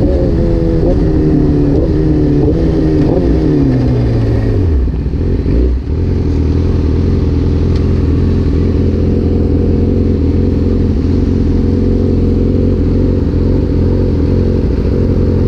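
Supersport motorcycle engine dropping in revs as the bike slows, with a few short rises in pitch along the way, then settling into a steady idle about six seconds in.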